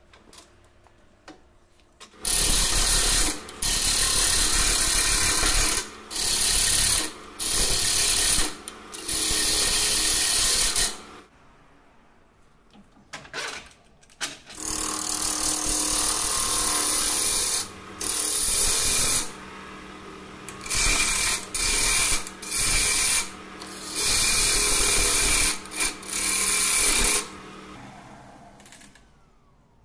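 Wood lathe turning a bark-covered mastic tree wood blank, with a hand-held turning tool cutting into it in loud, rough bursts lasting one to several seconds, separated by short breaks. The cutting stops from about 11 to 14 seconds in, while the lathe is stopped, then resumes and dies away near the end.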